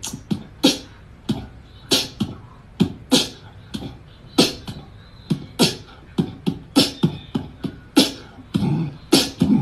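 A rhythmic percussive beat of sharp hits and low thumps, about two a second, in a steady groove like beatboxing.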